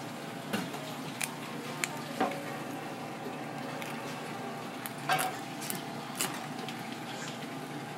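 Steady commercial-kitchen hum and hiss, with scattered light clicks and taps of a filleting knife against a plastic cutting board as a fish is cut; the sharpest taps come about five to six seconds in.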